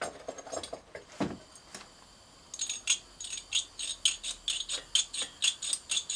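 Rapid run of sharp metallic clicks, about four a second, in the second half, from handling a hand-held propane torch while lighting it; a single knock comes about a second in.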